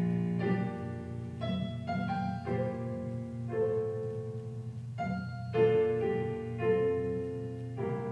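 Piano playing slow, sustained chords, a new chord or note roughly every half second to a second, with no voice over it.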